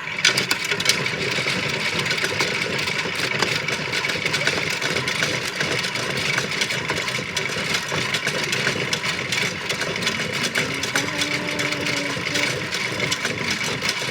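A battery-powered Washmatic toy washing machine's small electric motor is switched on and runs, with a steady high whine and a dense, constant clicking rattle from its plastic works.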